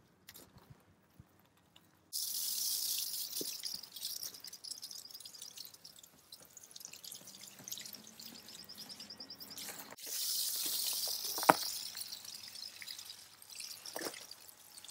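Shower-head watering wand on a garden hose spraying water onto succulent plants. The steady hiss of the spray starts suddenly about two seconds in and grows louder again about ten seconds in. One sharp click comes about eleven seconds in.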